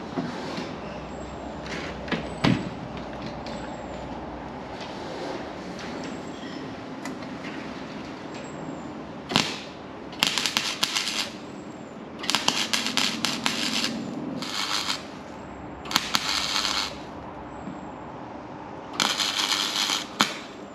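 Welder laying short crackling bursts of weld on the sill's sheet steel, five bursts in the second half, each about half a second to a second and a half long. A low hum and a few sharp metal knocks come before them.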